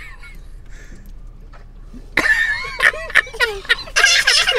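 People laughing and exclaiming in short bursts, starting about two seconds in after a quieter stretch.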